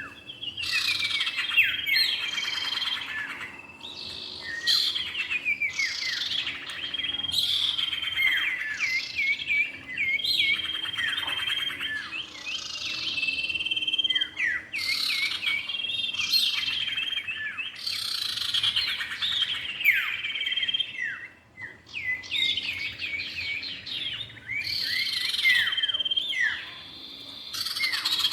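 Male and female common ioras (cipow) calling and singing: a dense run of quick chirps, trills and sweeping notes with short breaks every few seconds.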